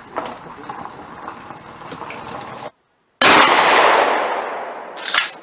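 Faint handling noise with small clicks, then a single loud gunshot about three seconds in, its echo dying away over about two seconds. A few sharp clicks follow near the end.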